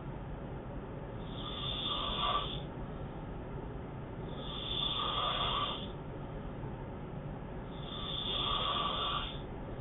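A man snoring in his sleep: three long, rasping snores, one about every three seconds.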